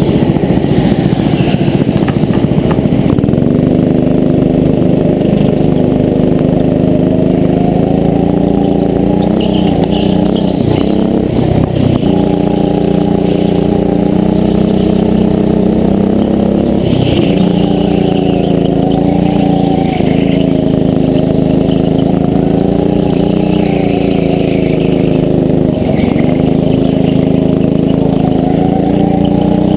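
Go-kart engine running hard, heard close from on board the kart. Its pitch falls off and climbs again several times as it slows and speeds up around the track.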